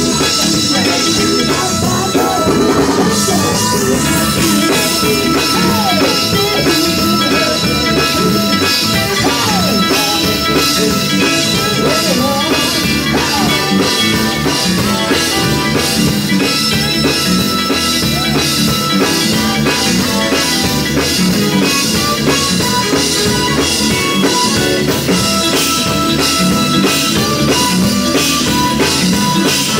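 Live gospel band music: electric guitar and drum kit keeping a steady upbeat groove under a male vocal group, loud and continuous.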